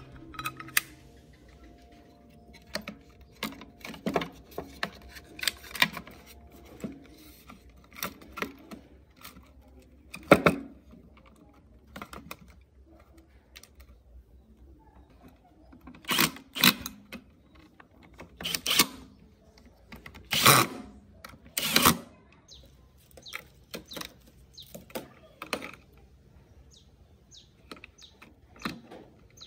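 Irregular clicks, taps and knocks from handling hoverboard parts: the aluminium frame, red plastic shell and wiring connectors being set down and fitted. The knocks are louder about ten seconds in and in a cluster past the middle.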